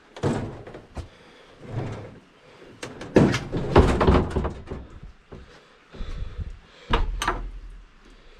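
A stiff, hard-to-open metal door of an old passenger rail car being forced, scraping and rattling in irregular bursts. The loudest stretch comes about three seconds in, and sharp knocks follow near the end.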